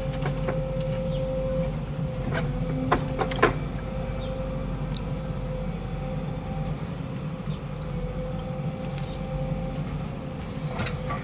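JCB backhoe loader's diesel engine running steadily, with a constant higher whine over it and a few sharp knocks about three seconds in.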